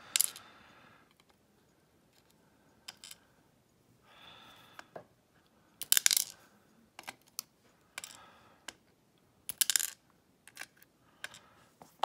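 Small lock pins and springs clicking as they are picked out of an Abus oval padlock with metal tweezers and set down in a plastic pin tray: a scatter of light, irregular clicks and taps, some with a short metallic ring, loudest about six seconds in and again near ten seconds.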